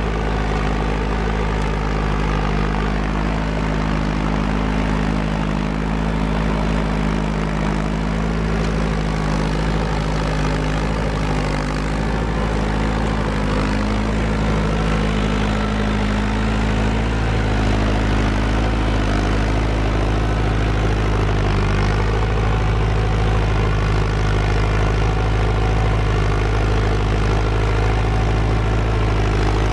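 Massey Ferguson tractor engine running steadily under load while pulling a two-bottom moldboard plow through sod.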